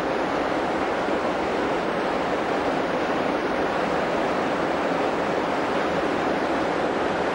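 Glacial meltwater river rushing steadily through a narrow rock gorge, a constant loud rush of water.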